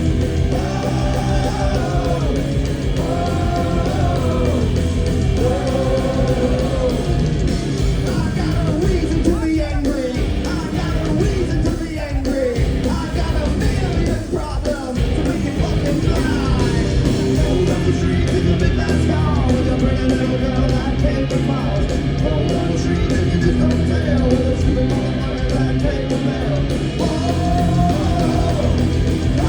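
Hard rock band playing live: distorted electric guitars, bass and drums with a sung and yelled male lead vocal.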